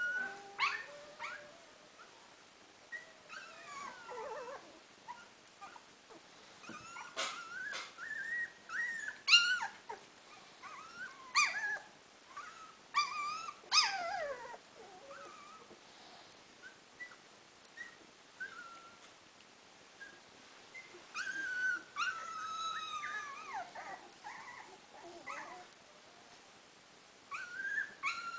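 Three-week-old standard schnauzer puppies whimpering and squeaking in short high calls that rise and fall in pitch, coming in scattered patches with quieter gaps between.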